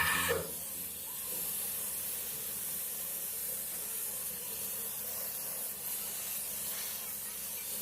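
Paint spray hissing steadily as paint is sprayed.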